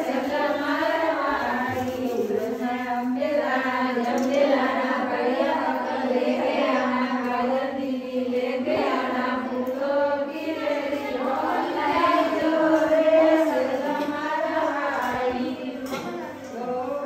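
A group of women singing a traditional wedding folk song (lokgeet) together, in chant-like unison without a break.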